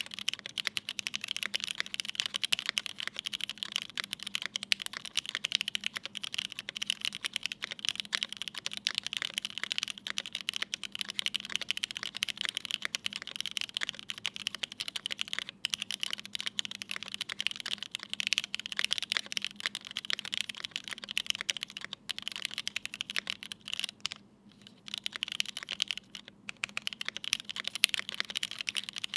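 Continuous fast typing on a Keycult No.1/65 custom mechanical keyboard with an aluminium plate, lubed Cherry MX Black linear switches on 70 g springs and GMK keycaps, a dense run of keystroke clacks with two brief pauses near the end.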